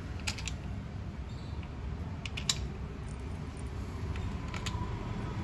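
A few light, sharp metallic clicks and taps as nuts and tools are handled on a motorcycle engine's crankcase, over a low steady workshop background.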